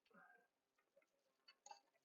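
Near silence with a few faint, small clicks.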